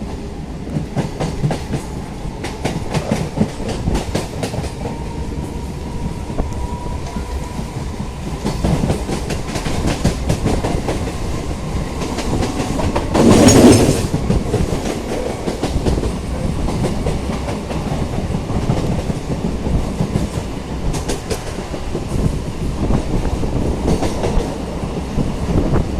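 Electric local train running along the track, heard from aboard, its wheels clicking over rail joints. There is a brief loud rush about halfway through.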